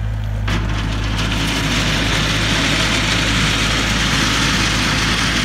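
Skid-steer loader's engine running steadily while its bucket scrapes and pushes through loose crushed stone. A continuous crunching rattle of gravel starts about half a second in.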